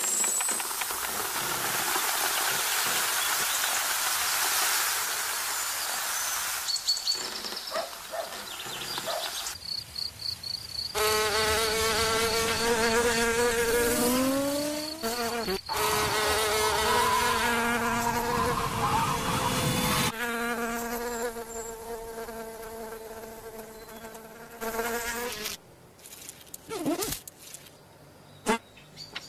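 Cartoon insect buzzing sound effects: a dense buzz of wings at first, then a pitched buzz that glides up and down in pitch through the middle, going much quieter near the end.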